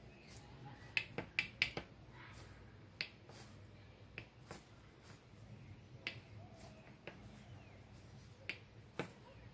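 Sharp, irregular metallic clicks of steel transmission gears on a Kawasaki Vulcan 900 shaft, spun and worked by hand, as it tries to make the steel detent balls inside the gear fly into their cups so the gear will slide along the splines. There is a quick run of clicks early, then single clicks about a second apart.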